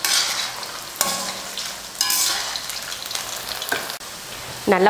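Cornflour-and-chilli-coated cauliflower florets deep-frying in hot oil in a stainless steel wok, sizzling steadily as a perforated slotted spoon stirs them. The sizzle swells sharply at about one-second intervals as the pieces are turned.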